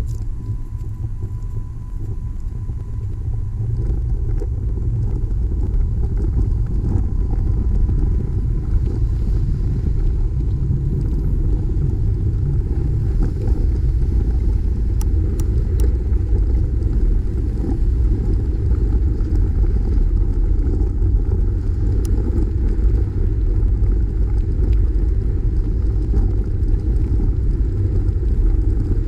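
Wind rumbling on the microphone of a camera on a moving bicycle, joined by passing car traffic. The low rumble grows louder over the first few seconds as the bike picks up speed, then holds steady.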